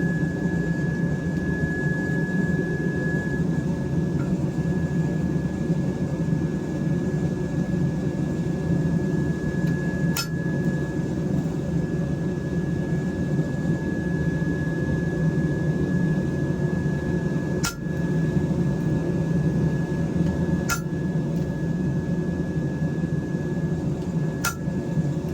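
A forge running with a steady roar, and four sharp hammer strikes on a steel stamp, spaced several seconds apart, as a touch mark is struck into the hot blade.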